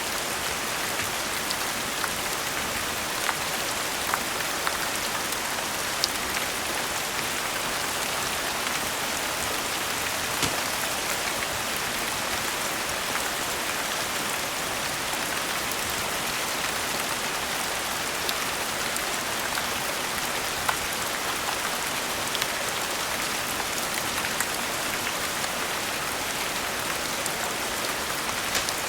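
Steady rain falling, with a fire crackling through it: scattered small sharp pops, a few louder ones standing out, about six and twenty seconds in.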